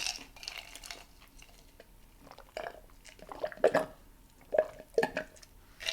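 Close-miked chewing and wet mouth sounds: a burst right at the start, then several short, scattered bursts over the last half.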